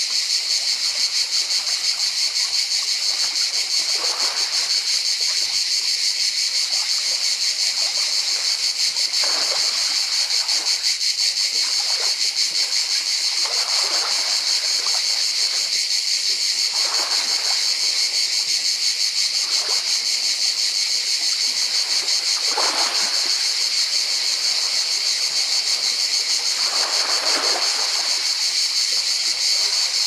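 Cicadas buzzing steadily in a high, pulsing drone. Small waves lap and wash over pebbles every four to five seconds.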